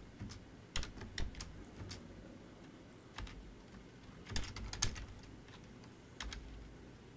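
Computer keyboard typing in irregular short runs of keystrokes with pauses between: a few keys near the start, a quick group about four and a half seconds in, and a last key about six seconds in.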